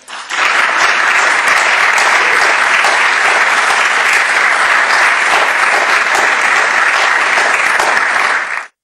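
Concert audience applauding: dense, steady clapping that starts right after the last guitar note and cuts off suddenly near the end.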